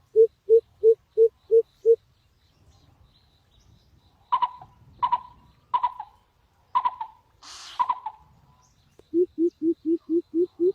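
Bird calls: a steady series of evenly spaced low hoots, about three a second, that stops about two seconds in. Five short, sharp, higher calls follow, with a brief hiss between the last two, and near the end a faster series of lower hoots starts up.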